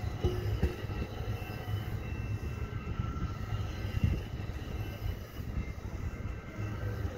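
Bombardier multilevel commuter coaches rolling past: a steady low rumble of steel wheels on rail, with a few short clunks, the loudest about four seconds in.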